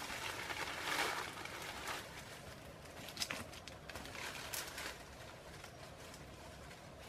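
Leafy branches rustling and crackling as they are pushed and arranged into a hut's leaf roof, loudest about a second in, with a few sharp crackles later.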